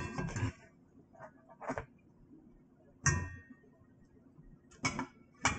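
Several short clinks and knocks from a metal spatula handled against a plate and a cast iron skillet. The loudest comes about three seconds in and has a brief metallic ring.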